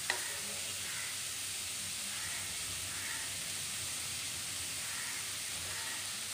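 Sliced onions frying in coconut oil in an aluminium kadai, a steady sizzling hiss, with one light tap of the spoon on the pan at the start.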